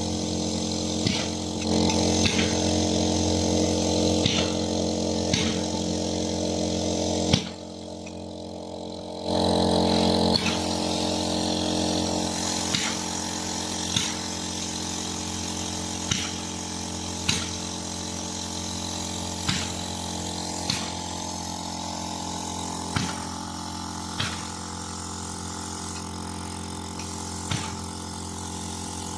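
Machinery running with a steady, even drone, with a sharp click about every second and a bit; it drops out briefly for about two seconds and then resumes.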